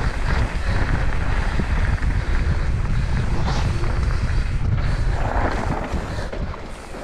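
Wind buffeting the microphone of a mountain bike ridden quickly down a dirt singletrack, over the steady rumble and chatter of knobby tyres rolling on the trail. It eases a little near the end.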